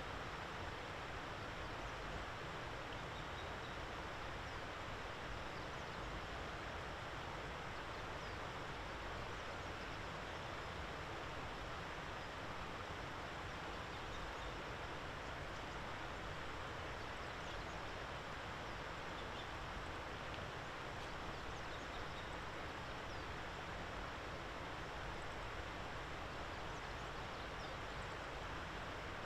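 Steady outdoor background noise, an even hiss-like ambience with no clear calls standing out.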